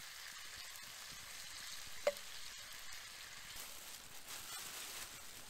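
Meat and a butter-and-A1 sauce sizzling faintly and steadily in a cast iron skillet over campfire coals, with a single short metallic clink about two seconds in.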